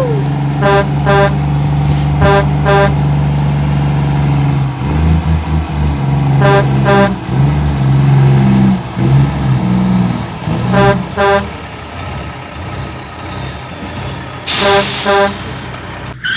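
Truck engine running with a steady low rumble while a horn gives a quick double toot, five times over, every few seconds. A burst of hiss comes with the last pair of toots near the end.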